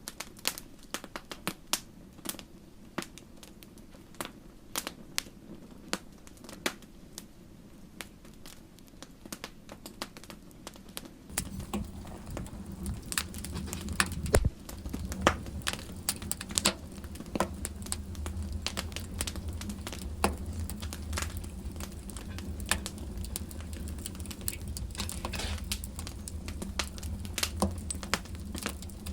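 Wood fire burning in a fireplace, crackling with irregular sharp pops and snaps. About eleven seconds in, a steady low rumble joins and the fire gets louder.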